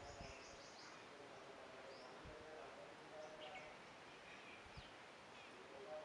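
Near silence: faint outdoor ambience with a few faint, short, high bird chirps.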